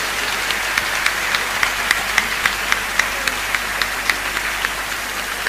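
Audience applauding, settling into claps in unison at about four a second.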